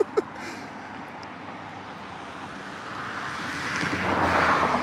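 A vehicle going by on the road: a steady rushing hiss that grows louder over the last two seconds, peaks near the end and begins to fade.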